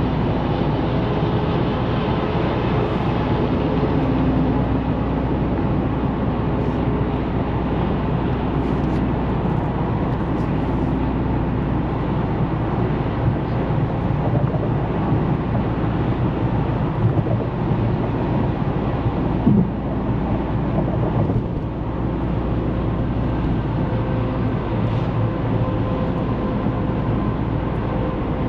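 Dodge Charger Scat Pack's 6.4-litre 392 HEMI V8 and road noise, heard from inside the cabin while cruising steadily at highway speed.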